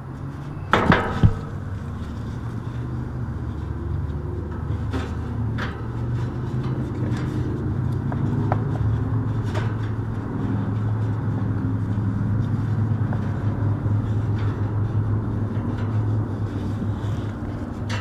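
Two or three sharp metallic knocks about a second in as the condenser fan motor and its wire grille lid are handled, then a few light clicks, all over a steady low rumble.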